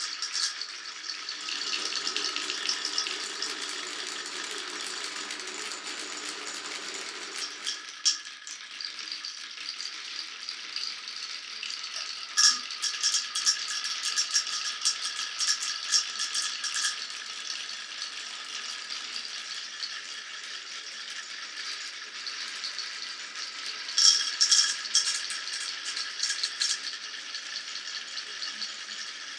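Glass marbles rolling and clattering down a marble run, a steady rolling rattle dotted with sharp clicks. Dense runs of quick clicks come a little under halfway through and again near the end.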